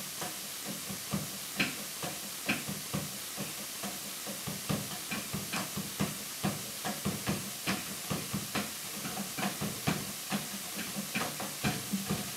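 Light, irregular taps on a drum kit, coming closer together in the second half, over a steady hiss.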